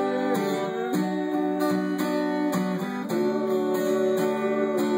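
Acoustic guitar strummed as accompaniment to a song, with no singing, holding chords and changing chord about three seconds in.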